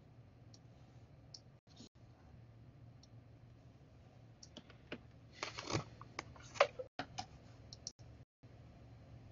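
Scattered clicks and taps of a computer keyboard and mouse, thickening into a cluster of louder clicks about five to seven and a half seconds in, over a faint steady low hum.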